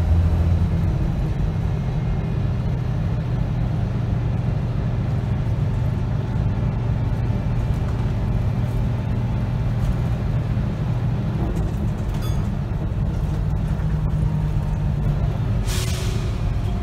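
Volvo B7RLE bus's 7-litre six-cylinder diesel engine and ZF automatic gearbox, heard from inside the saloon while the bus drives: a steady, heavy low drone. A brief hiss comes about a second before the end.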